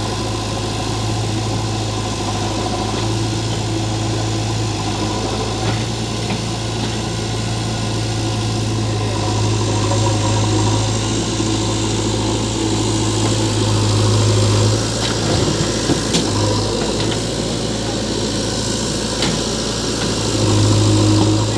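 Heavy diesel machinery engine running steadily at low revs, with a few brief knocks about six seconds in and again in the second half.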